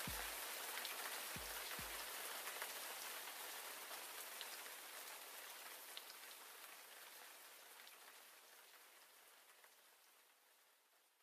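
Steady rain falling, fading out gradually until it is gone near the end. A few low thuds sound in the first two seconds.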